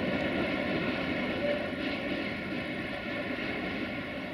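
Electric locomotive hauling a freight train of tank wagons, running slowly with a steady drone and several held whining tones from its motors and blowers, easing slightly in level.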